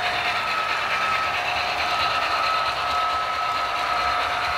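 HO scale model trains running on the layout: a steady mechanical whir of motors and wheels on the track, with a faint steady whine.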